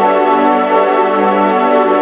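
Loud music voiced through a saxophone vocoder effect: a thick, many-voiced reedy tone holding notes that shift in pitch.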